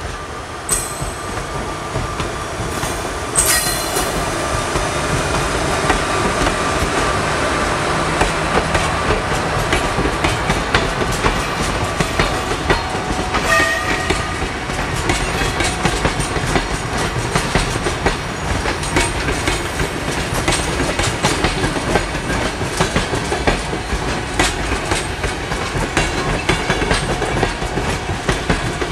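A locomotive-hauled passenger train rolling past, wheels clattering rapidly over rail joints under a steady rumble of the passing coaches. A few brief high-pitched tones cut through, the last about halfway through.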